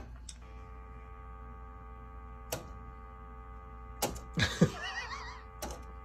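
Dial tone from a rotary wall phone's handset: a steady, unbroken tone that starts about half a second in, after the handset is lifted and the hook switch clicks. A few sharp handling clicks sound over it, and a short wavering whine of voice comes about four and a half seconds in.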